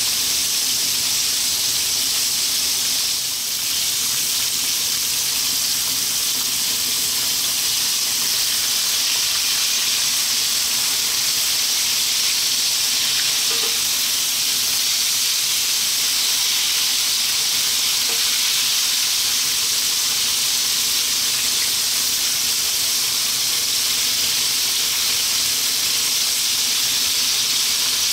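Flour-coated pieces of fish deep-frying in about two centimetres of hot sunflower oil in a frying pan: a steady, even sizzle.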